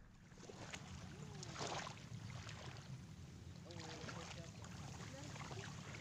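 Faint outdoor ambience among reeds: a steady low wind rumble on the microphone, a brief rustle about one and a half seconds in, and a few short chirps scattered through.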